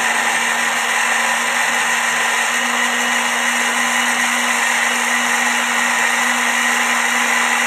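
Silver Crest hand blender motor running continuously on its chopper bowl attachment, mincing raw mutton into keema. It is a steady, even whine with a constant low hum under it.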